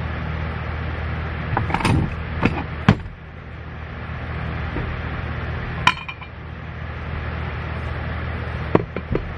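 Aluminum soft-plastic bait mold being handled and pulled apart: sharp metal clinks and knocks, several about two to three seconds in, one near six seconds and a few more near the end, over a steady low hum.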